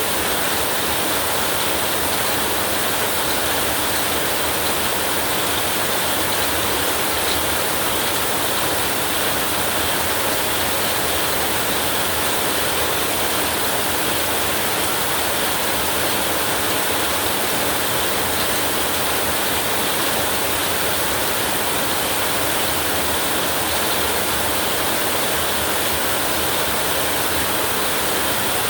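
Torrential rain falling steadily, a dense, even hiss with no thunder or other breaks.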